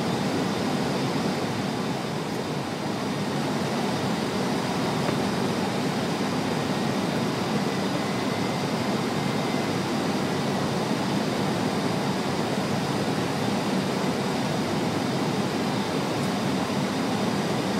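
Steady rushing cabin noise on the flight deck of an Airbus A321 in flight, with a faint high steady whine above it.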